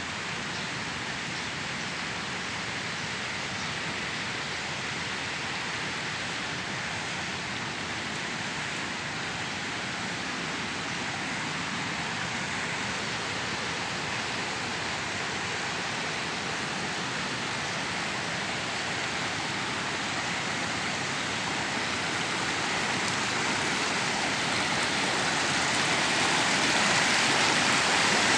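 Rushing water of a fast, rocky mountain stream: a steady hiss that grows louder over the last several seconds as the stream draws near.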